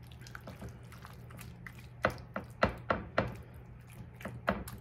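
Silicone spatula stirring a thick, wet mixture of sliced squash, cheese and sour cream in a glass baking dish: irregular squelches and knocks against the glass, coming faster in the second half, over a faint steady low hum.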